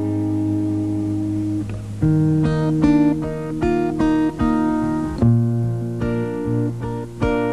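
Instrumental passage from a live band performance, without singing: a chord held for about two seconds, then a run of separate notes.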